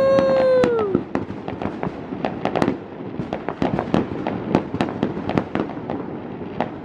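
Many fireworks going off at once in several places: a dense run of sharp bangs and crackles, several a second. A brief held high tone sounds over the first second.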